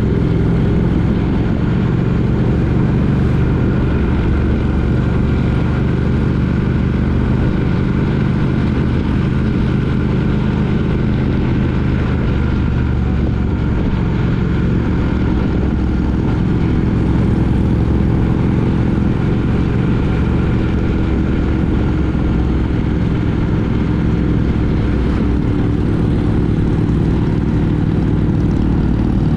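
Triumph Speed Twin 900's parallel-twin engine running steadily at cruising speed, its pitch shifting only slightly as the throttle changes.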